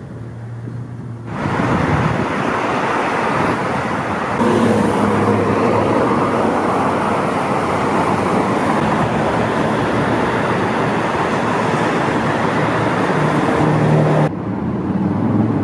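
Steady rush of multi-lane freeway traffic, many cars passing at speed. It comes in abruptly about a second in, grows louder about four seconds in, and drops off sharply near the end.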